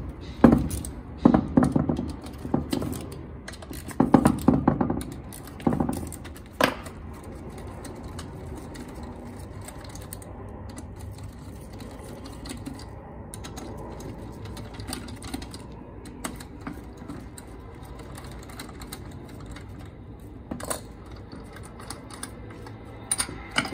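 Clicks and clanks of metal hand tools worked on a cylinder-boring jig clamped to a scooter engine's aluminium crankcase. A dense run of clatter fills the first seven seconds or so, then only occasional faint clicks.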